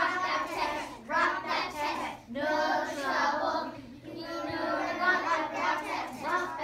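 A group of young children singing a song together in phrases, with short breaks between lines.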